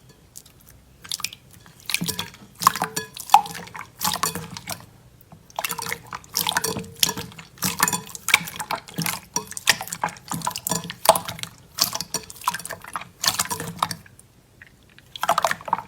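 Slime being squeezed and pressed by hand: a run of irregular wet clicks and pops, with a short pause near the end.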